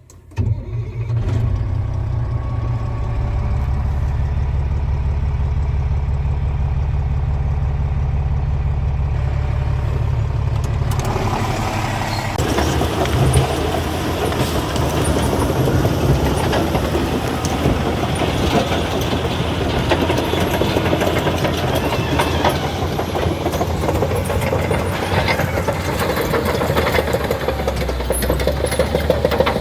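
Caterpillar D8 bulldozer's diesel engine running, starting abruptly just after the beginning. About eleven seconds in, a dense clattering and rattling joins it and continues, typical of the steel tracks and blade working the ground.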